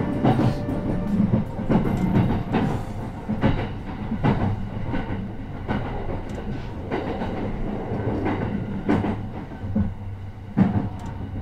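Passenger train running, heard inside the car: a steady low rumble with the wheels clacking over rail joints every second or so.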